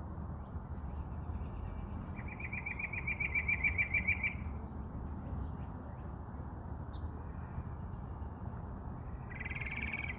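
A songbird singing a rapid trill of about eight notes a second, lasting about two seconds and swelling as it goes, then a shorter trill near the end. Faint high ticks repeat about twice a second over a steady low rumble.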